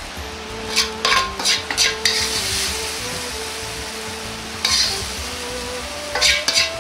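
Steel wok ladle scraping and clinking as hot stir-fry is scooped up and pressed onto a plate, in several short bursts, with a sizzling hiss from the hot food and pan.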